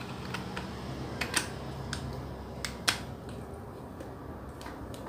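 Hard plastic clicks of a power adapter's detachable plug head being handled and fitted back on, several separate clicks with the sharpest a little under three seconds in.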